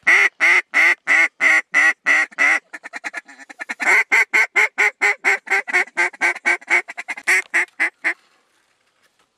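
Hunter's mallard duck call blown in a long series of loud quacks, about four a second, with a quicker and softer run of short notes around three seconds in, then another long run of quacks that stops about eight seconds in: calling to ducks coming back to the decoys.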